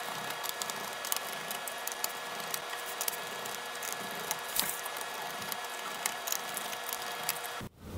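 Faint, irregular small clicks and light scraping of a small T5 Torx screwdriver turning out the tiny screws of a laptop's bottom case, over a steady low hiss. The sound cuts out briefly near the end.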